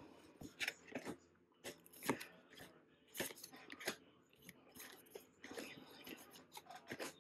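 Baseball cards being flicked through by hand, each one slid off the front of a stack to the back, making faint short scrapes and flicks about once or twice a second at an uneven pace.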